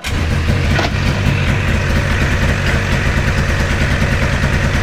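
Two-cylinder two-stroke Rotax engine of a 1997 Lynx G-type Enduro 500 snowmobile running steadily at idle, just started after its carburettors were cleaned and air was bled from the fuel lines.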